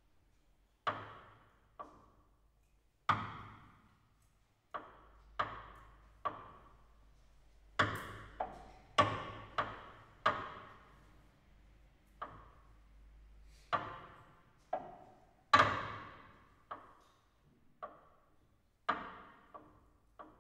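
Sparse contemporary chamber music for clarinet, cello and piano: about twenty sharp, isolated struck or plucked attacks at irregular intervals, each ringing out briefly before the next.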